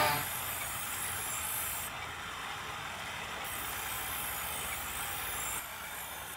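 Steel knife blade held against a pedal-driven grinding wheel: a steady hissing grind that eases off about five and a half seconds in.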